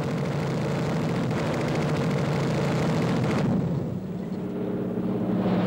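Piston aircraft engines running loud and steady. A noisy rush gives way, a little over three seconds in, to a smoother, lower drone.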